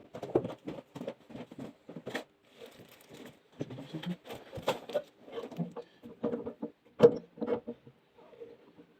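Irregular light knocks and taps on wood, a few a second, with stretches of scraping, as a lock mortise is cut into a door's edge; the sharpest knock comes about seven seconds in.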